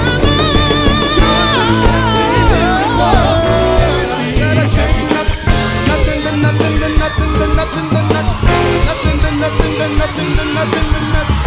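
Live band music with bass and drums. A held, wavering lead note slides down in steps over the first few seconds.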